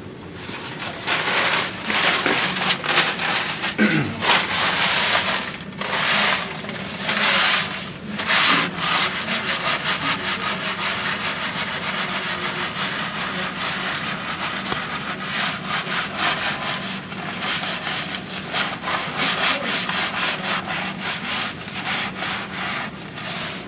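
Paper towel scrubbing hard against a painted wall, quick back-and-forth rubbing strokes, heavier and more broken in the first several seconds and then steady and rapid. One brief squeak dropping in pitch about four seconds in.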